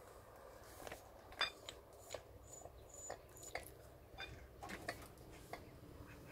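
Faint, irregular metallic clicks and clinks from a hydraulic bottle jack being worked by its long pump handle, pressed down by foot, to raise a heavy truck with a broken leaf spring. The sharpest clink comes about a second and a half in.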